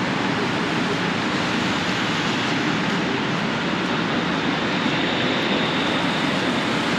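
Steady city street noise: a continuous wash of traffic, with a faint high whine in the middle.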